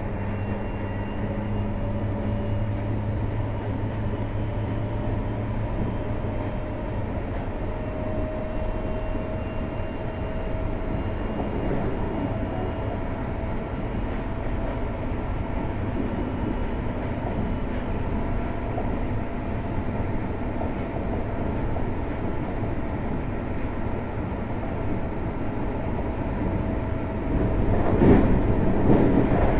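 JR Hokkaido 733 series 3000 subseries electric train running between stations, heard from inside motor car MoHa 733-3109: a steady rumble of wheels on rail with a faint motor whine that rises slowly in pitch over the first half. The rumble grows louder near the end.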